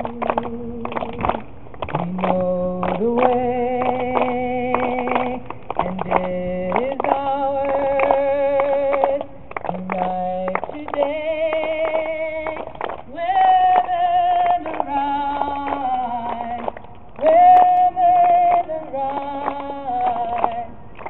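Group of women singing a song together in harmony, holding long notes, some with vibrato, over a regular beat of short strokes.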